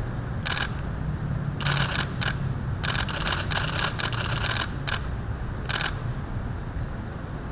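Rapid camera shutter clicks in short bursts from several still cameras, coming in about eight clusters and heaviest in the middle, as the handover is photographed.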